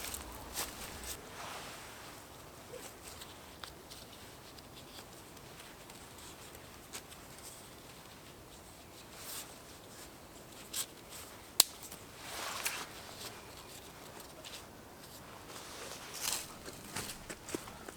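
Faint rustling and scattered crackles of twigs and leaf litter on the forest floor, with one sharp snap a little past halfway and a couple of brief rustling bursts near the end.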